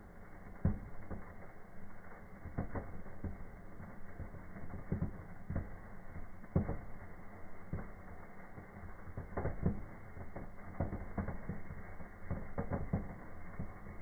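Burning sparklers crackling and popping in irregular, scattered snaps, about a dozen in all, sounding dull because everything above the low range is cut off.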